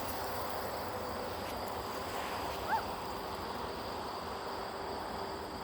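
Steady outdoor background hiss, with one short meow from a house cat about halfway through, rising and falling in pitch.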